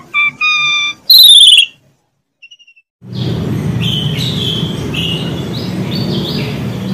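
A short electronic logo jingle of stacked synth tones that ends before two seconds in. After a brief pause, a cage of canaries chirps over a steady low background hum.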